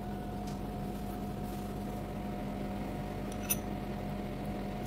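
Faint chewing over a steady electrical hum in a small room. About three and a half seconds in, there is a single short metallic clink, a fork touching the plate.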